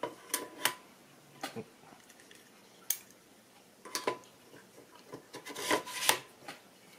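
Metal clicks, knocks and scraping as a scope mount is fitted and seated onto the side of an AK-pattern rifle's receiver. Single knocks come every second or so, then a denser run of scraping and clicks near the end, some with a brief metallic ring.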